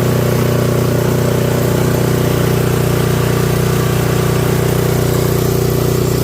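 The 212cc single-cylinder engine of a Toro 721R single-stage snowblower running steadily, freshly started after years in storage.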